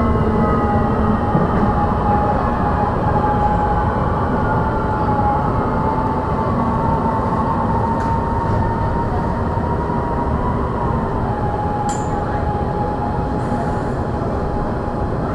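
Light-rail train heard from inside the carriage: a steady rumble of wheels on track under a motor whine that slowly falls in pitch as the train slows into a station. A single sharp click about twelve seconds in.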